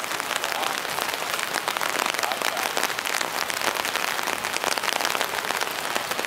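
Steady rain falling, a dense patter of drops with no break.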